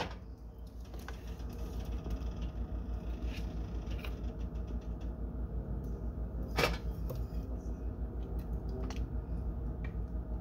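A ladle serving soup from a stainless steel pot into a ceramic bowl: small clicks and scrapes, with one sharper clink about two-thirds of the way through, over a steady low hum.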